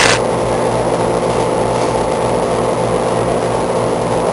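Man-made tornado exhibit's fans running steadily, a constant rushing of air over a low electrical hum. A brief burst of noise comes right at the start.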